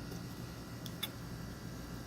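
Faint steady background hum with two light clicks close together about a second in.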